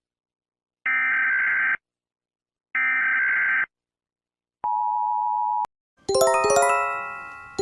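Emergency Alert System-style alarm: two digital header data bursts of about a second each, a pause after each, then a steady attention tone lasting about a second. A click follows, and about six seconds in a chiming jingle starts, a quick run of notes that rings and fades.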